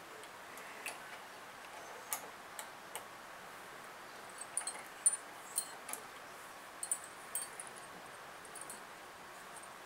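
Sparse, irregular small metallic clicks and ticks as a hand tool turns a fastener on pinball machine hardware, a few in quick clusters.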